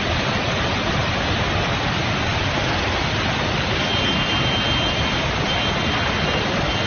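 Steady rushing roar of a mudflow from a burst tailings dam, a torrent of mud and water surging past.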